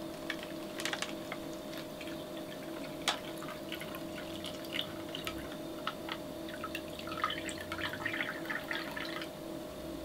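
Water poured from a small glass measuring jug into a drink-powder sachet, trickling and dripping, with a few sharp ticks about a second and three seconds in and a patch of fine crackling near the end.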